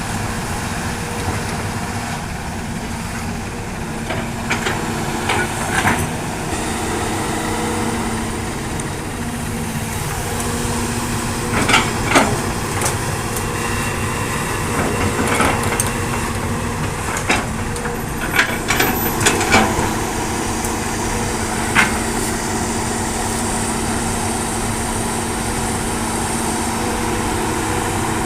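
Hitachi hydraulic excavator's diesel engine running steadily under work, with several short bursts of metallic clanks and knocks as it digs and loads.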